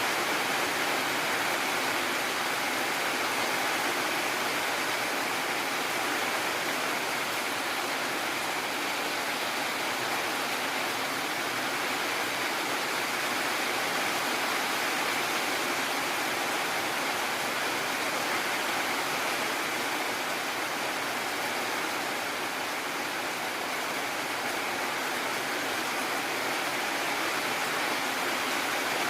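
Heavy rain falling steadily, an even hiss with no thunderclaps or other sudden sounds.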